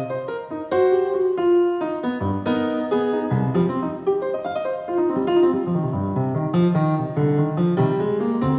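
Solo jazz piano playing an instrumental passage, with a melody line over low chords and a steady flow of struck notes, no voice.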